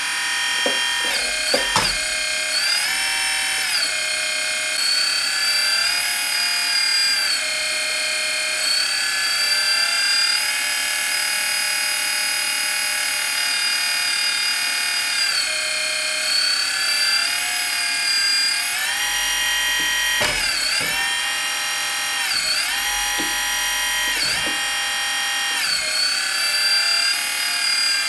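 Hydraulic pump of a 1/14 Kabolite K350 RC excavator whining, its pitch dropping and rising again as the boom, arm and bucket are worked. A few short knocks come near the start and again about twenty seconds in.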